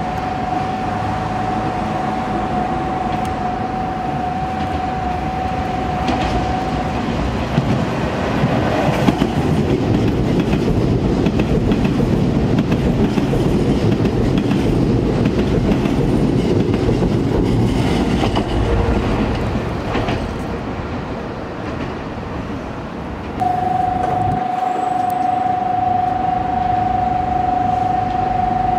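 Electric commuter train passing through a station at speed without stopping: a loud rush of steel wheels on rail with clickety-clack over the rail joints, building about seven seconds in and easing off after about twenty seconds. A steady high tone sounds for the first several seconds and again near the end.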